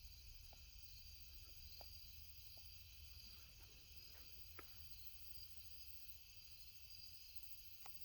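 Faint, steady chorus of night insects, several continuous high trills layered together, over a low rumble, with a few faint ticks.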